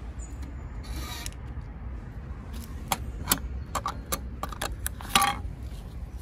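Pay-and-display parking machine printing and issuing a ticket: a brief high beep, a short whirr of the ticket printer, then a run of sharp clicks and a louder scrape near the end as the ticket is pulled from the slot.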